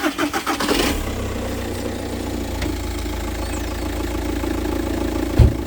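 2009 Seat Leon engine starting, with a second of fast cranking strokes, then idling steadily with a noise the mechanic traces to a worn rubber damper on the crankshaft pulley. One short low thump near the end.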